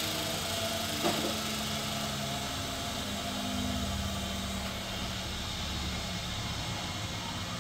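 Steady hum of running workshop machinery, with a short click about a second in and a deeper rumble joining for a few seconds around the middle.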